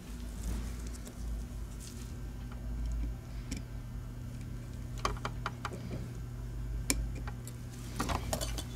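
Light clicks and taps from handling a disassembled Logitech G Pro Wireless mouse's plastic shell and circuit board with tweezers. A cluster of clicks comes about five seconds in and again near the end, over a low steady hum.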